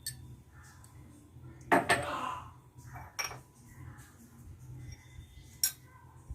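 A spoon clinking and scraping against a bowl as ingredients for a chicken marinade are spooned in. There is a louder clatter with a short scrape about two seconds in, then single clinks about three seconds in and near the end.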